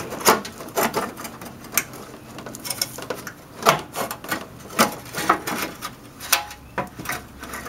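Metal exhaust parts of an air-cooled VW Beetle, the preheater pipe and the new muffler, clanking and scraping as the pipe is worked into its fitting on the muffler. It is an irregular string of sharp knocks and clicks, one or two a second, with a short metallic ring to one of them near the end.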